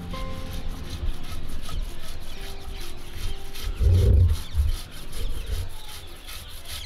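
A stone muller grinding dried red chillies on a flat stone slab (sil-batta): rough stone rubbing on stone in quick back-and-forth strokes, heaviest about four seconds in.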